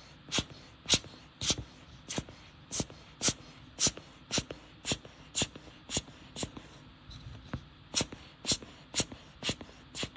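Hand air blower puffing short bursts of air, about two a second in an even rhythm, to dry cleaning alcohol off a phone's logic board.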